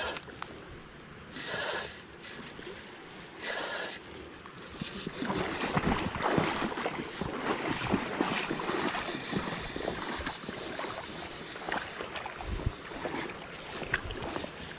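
Creek water rushing and splashing, with two short rushes of noise about two and four seconds in, then a steady busy splashing.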